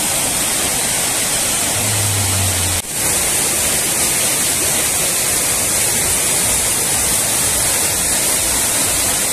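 Waterfall rushing, a loud, steady hiss of falling water that breaks off briefly a little under three seconds in.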